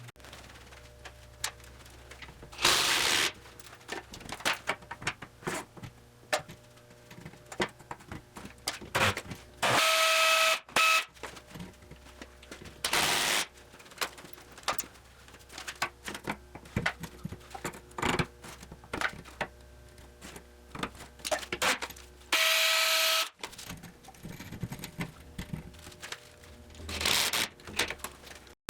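Workshop work noises: frequent clicks and knocks of handling, broken by five short bursts of noise about half a second to a second long, two of which carry a steady whine like a small power tool.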